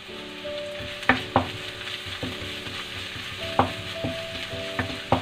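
Onion, ginger and garlic sizzling in hot oil in a frying pan with curry leaves just added, stirred with a spatula that knocks against the pan a few times.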